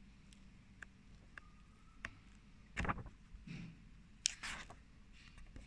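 Paper pages of a book being turned and handled: a short rustle of paper about three seconds in, another soft one after it, and a sharper rustle a little past four seconds, with faint small ticks between.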